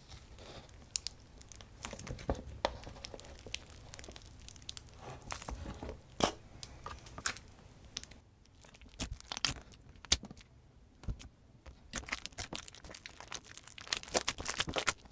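Slime being mixed by hand, with irregular sticky crackles and pops throughout.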